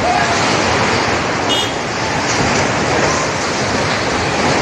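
Cyclone-force wind with driving rain, a loud steady rushing noise as the wind tears through thrashing trees.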